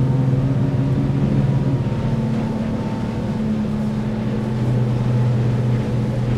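Yamaha F225 four-stroke V6 outboard running steadily at high speed through a tight turn, a constant drone with the rush of water beneath it. The outboard is holding its grip in the corner without cavitating.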